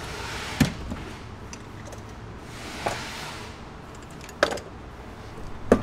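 A few light knocks and clicks of hand work: a cordless impact wrench set down on the cargo-floor carpet and a loosened bolt picked out by hand. Four separate clicks, the last one, near the end, the loudest.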